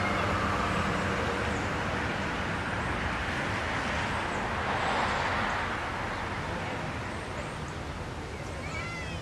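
A road vehicle passing by: its tyre and engine noise swells to a peak about halfway through and then fades away. A few short bird chirps come near the end.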